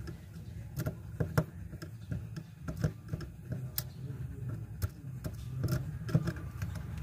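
Irregular small clicks and taps of a screwdriver and fingers working on a plastic Bluetooth speaker casing, over a steady low hum.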